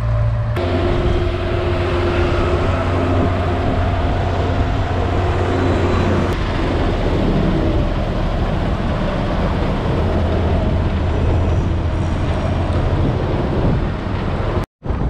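Heavy diesel trucks running close alongside a bicycle on a highway, with road and wind noise. A steady engine hum stands out in the first several seconds. The sound breaks off abruptly for a moment near the end.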